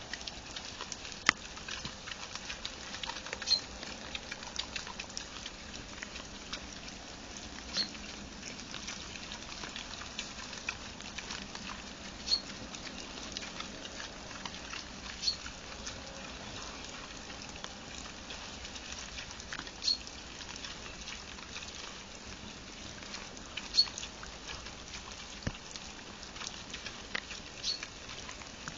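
Wild boar eating scattered maize: faint crunching and rooting clicks over a steady hiss, with a short high chirp every few seconds.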